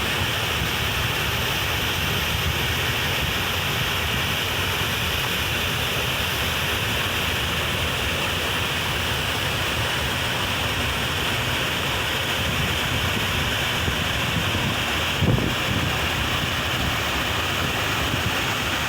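Waterfall rushing, a steady roar of falling water, with a brief thump about three quarters of the way through.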